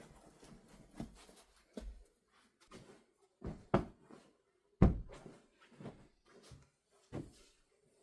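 A string of light knocks and clatters from things being handled and set down, like a cupboard or door being opened and shut, in a small room; the loudest knock comes about five seconds in.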